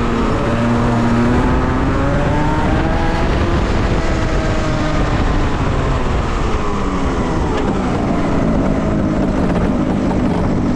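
Pre-evo Rotax Max 125cc two-stroke kart engine heard onboard at speed, climbing in revs over the first few seconds, then falling away and running lower and steadier through the last few seconds.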